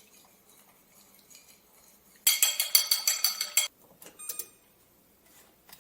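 A utensil beaten rapidly against the inside of a bowl, clinking about ten times a second for about a second and a half as something is whisked, followed by a single ringing tap on the bowl.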